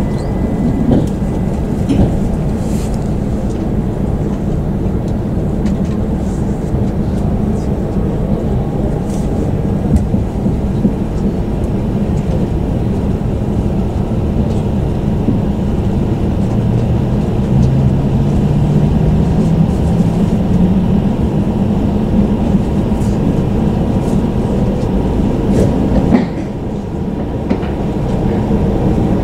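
Shinkansen train rumbling, heard from inside the passenger cabin as the train starts moving and gathers speed. A rising motor whine comes in partway through, and the sound drops suddenly in loudness near the end.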